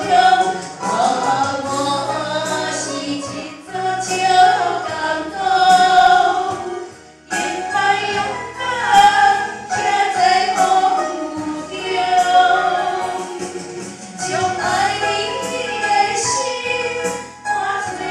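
A woman singing a slow song into a handheld microphone over instrumental accompaniment with a steady bass line, her voice amplified through a loudspeaker. She sings in long held phrases with vibrato and short breaks between them.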